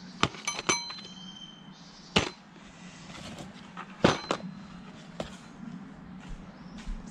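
Metal hand tools from a tool set clinking and knocking together: a quick cluster of clinks with a brief metallic ring near the start, then single sharp knocks every second or two.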